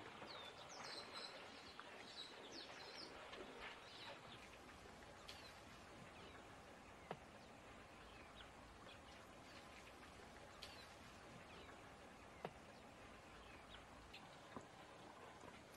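Near silence: faint outdoor ambience with scattered short bird chirps in the first few seconds, over a low steady hiss, and a few isolated faint clicks later on.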